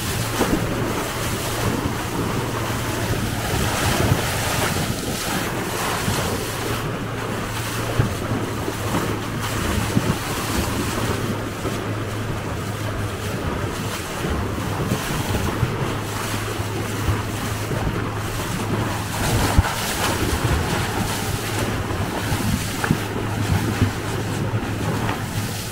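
Boat underway: water rushing past the bow and wind buffeting the microphone, over a steady low engine hum.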